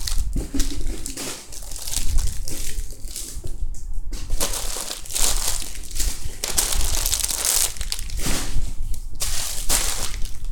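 Continuous crinkling and rustling as a heap of squishy foam toys is gathered up and handled by hand.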